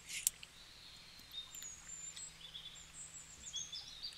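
A brief rustle of clear plastic binder envelopes and paper money being handled at the start, then faint high-pitched chirps and short twitters through the rest.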